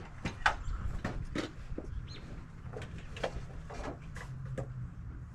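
Scattered short clicks and knocks over a low rumble, with a bird chirping briefly about two seconds in.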